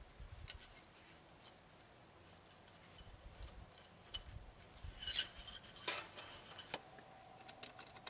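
Small clicks and light clinks of metal camp gear being handled at a camp table, scattered and faint, with a sharper cluster of clinks about five to six seconds in.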